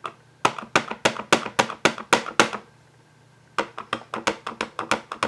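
A plastic-cased Stampin' Up! Classic Stampin' Pad (Flirty Flamingo) tapped repeatedly onto a clear photopolymer stamp to ink it. There are two runs of quick taps, about eight and then about ten slightly faster ones, with a pause of about a second between them.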